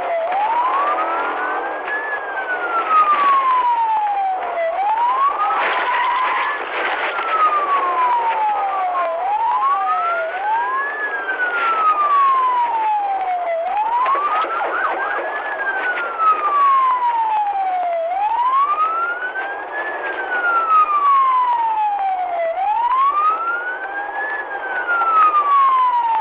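Police car siren on a slow wail, its pitch rising and falling about every four and a half seconds, over the steady noise of the cruiser driving at speed in a pursuit.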